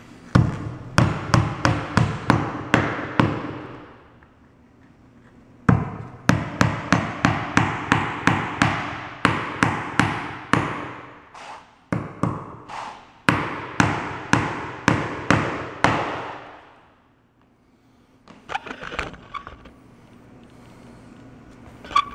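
Hammer driving finish nails into an oak threshold, in quick runs of about three strikes a second, each blow ringing briefly. A short run comes first, then after a pause a much longer run, and a few lighter taps near the end.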